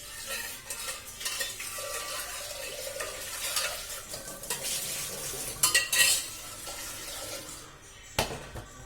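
A spoon stirring and scraping against a cooking vessel as boiled sprouts are mixed with chopped tomato, green chilli and onion, with a few sharper clinks about halfway through.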